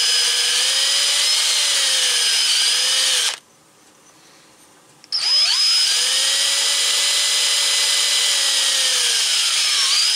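Handheld electric drill boring a hole through wood from the second side to meet a pilot hole, its motor running with a steady whine. It stops about a third of the way in, then starts again about two seconds later, its whine rising as it spins up.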